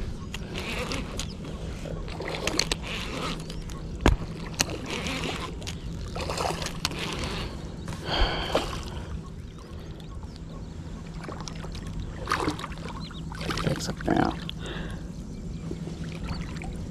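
Shallow water splashing and sloshing in irregular bursts as a hooked fish is drawn through it to the water's edge, with a sharp knock about four seconds in.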